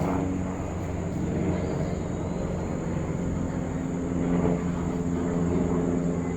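A motor engine running steadily, its pitch drifting slightly up and down.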